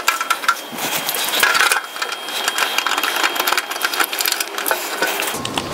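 Rapid, dense clicking and rattling of a Torx driver and loose bolt hardware against a clear plastic motorcycle windscreen as its mounting bolt is undone.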